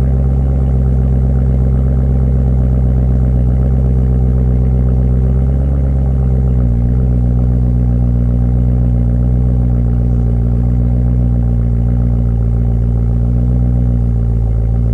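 BMW E90 M3's S65 V8 idling after a cold start through a Meisterschaft GT exhaust, a steady deep drone. The idle settles slightly lower about six to seven seconds in.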